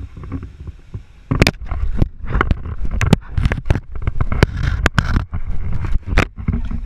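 Repeated sharp knocks and scrapes over a low rumble as an alligator's teeth clamp and knock against the camera held in its jaws.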